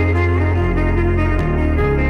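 Background music: a jazzy instrumental with saxophone or other brass over a steady bass line.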